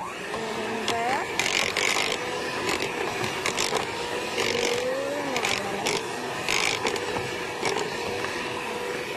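Electric mixer switched on and run through mashed potatoes. Its motor gives a steady hum whose pitch sags briefly under load near the middle, with several short bursts of scraping noise.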